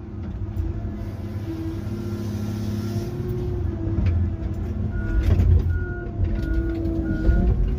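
Tigercat 822 feller buncher's diesel engine and hydraulics running, heard from inside the cab, with a hydraulic whine that rises and falls as the boom and head move. About five seconds in, a machine warning beeper starts, beeping roughly three times every two seconds.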